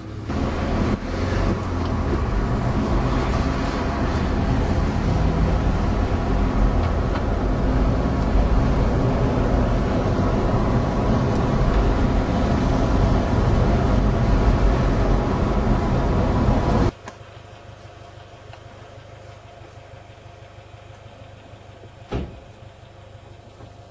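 Car engine and road noise heard from inside the moving car, swelling over the first couple of seconds and then running loud and steady. About 17 seconds in it cuts off suddenly to a much quieter hum, with a single knock a few seconds later.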